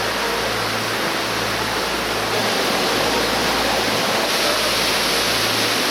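Waterfall with a steady, loud rush of falling water.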